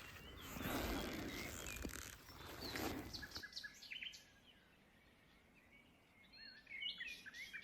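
Small forest birds chirping in short high calls, more of them near the end. For the first three seconds a broad rustling noise lies under them.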